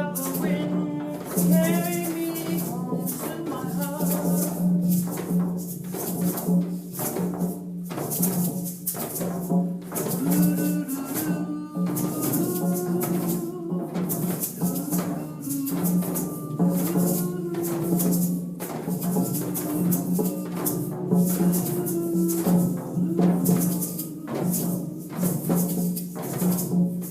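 Group hand percussion: shakers, rattles and drums playing a steady, busy rhythm, over a sustained low drone with a wavering melody above it.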